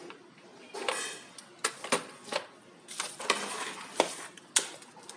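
Small drill bits and grinding accessories of a rotary tool kit being handled: a series of sharp clicks and short metallic rattles.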